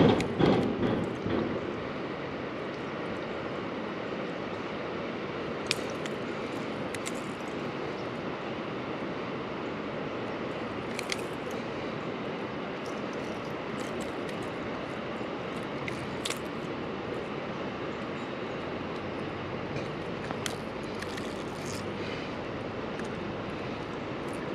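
Creek water rushing steadily, with a louder burst of noise in the first second or so and a few sharp clicks now and then.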